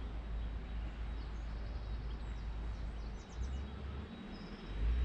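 Outdoor ambience with wind rumbling on the microphone and a few short, high bird chirps, about halfway through and again near the end.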